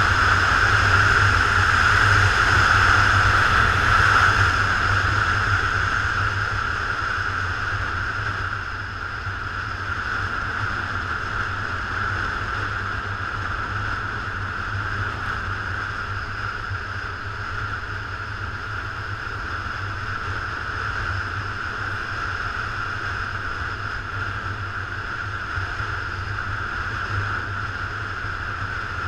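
Motorcycle riding along a road: steady wind rush and engine rumble picked up by a camera on the bike, loudest over the first few seconds and easing off from about five seconds in.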